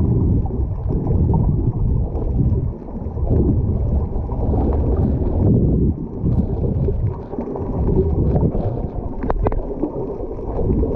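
Muffled, low rumbling and sloshing of water moving around a camera held underwater, rising and falling unevenly. Two short clicks come near the end.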